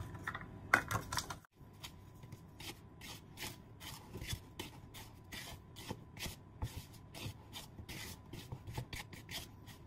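A spatula stirring dry flour, sugar, salt and baking powder in a plastic mixing bowl: quick rubbing, scraping strokes, about three a second. A few sharper knocks in the first second.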